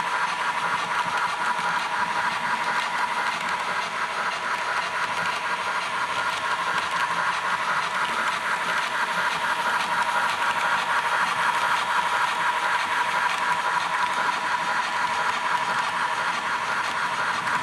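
Model train running on its track: a steady hum with a fast, fine ticking.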